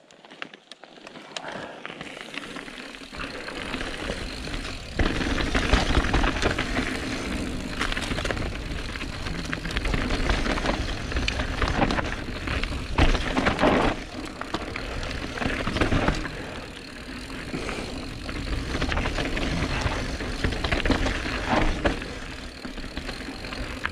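Calibre Sentry mountain bike ridden down a rough dirt trail: a continuous rattling, clattering rumble of tyres, chain and frame, picking up over the first few seconds. Sharp knocks are scattered through it as the bike hits bumps.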